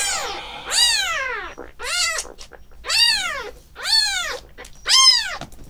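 About two-week-old white kitten crying loudly, about six cries roughly a second apart, each rising then falling in pitch.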